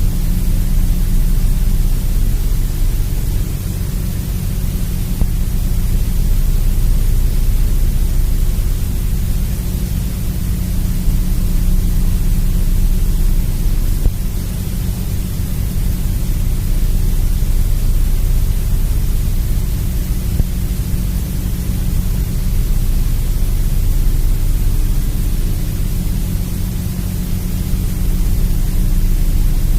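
Loud, steady static hiss over a low, steady hum, like a broadcast channel carrying only noise, swelling and easing slowly.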